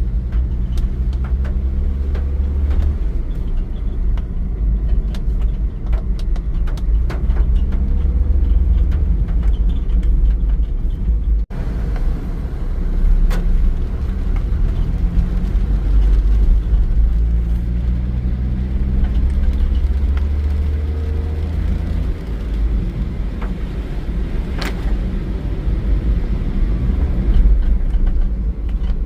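Heavy rain with a loud, steady low rumble beneath it and many scattered sharp ticks. The sound drops out for an instant about eleven seconds in.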